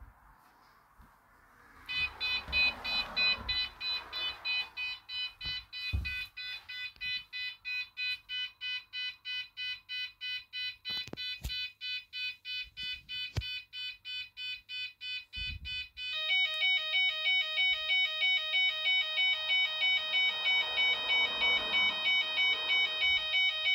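Security alarm sounder going off: after a moment of quiet, a rapid electronic beeping of several high pitches, about two pulses a second. About two-thirds of the way through it switches to a louder, faster pattern with added lower tones, about three pulses a second. The alarm signals a detected intruder.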